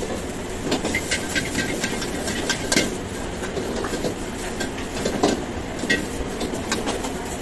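Steel ladle and spatula clanking and scraping against an iron wok as shredded vegetables are stir-fried, over the steady rushing noise of a high-flame wok burner. The clanks come irregularly, loudest about three seconds and five seconds in.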